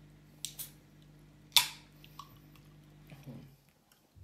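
Aluminium drink can opened by its pull tab: two small clicks, then a sharp pop with a short hiss about a second and a half in.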